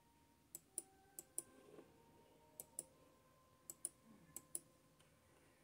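Near silence broken by about ten faint, sharp clicks, most of them in quick pairs.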